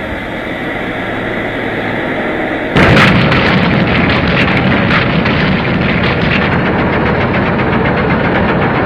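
Loud, steady rushing noise that jumps louder about three seconds in and is then thick with crackling, like a heavy rumble or blast.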